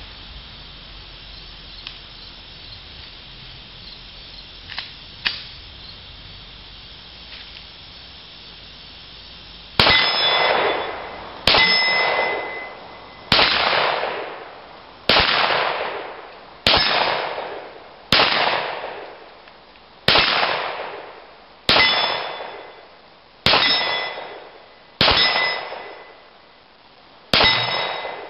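Glock 17 9mm pistol firing slow, evenly paced shots at steel targets, starting about ten seconds in: eleven shots about one and a half to two seconds apart, each followed by the steel plate ringing and fading.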